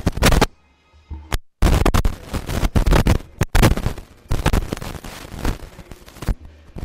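Handling noise from a handheld microphone being moved about: loud scraping, rubbing and knocks on the mic body and cable, with the signal dropping out completely for a moment about a second and a half in.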